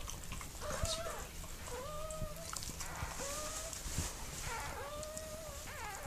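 Newborn puppy crying: a series of short, thin squeals, about one a second, each rising and then falling slightly in pitch.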